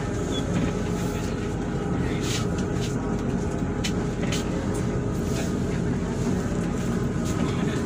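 Inside the cabin of a Hino RK8 R235 diesel coach on the move: a steady engine drone mixed with road noise. A few light clicks or rattles come in the middle.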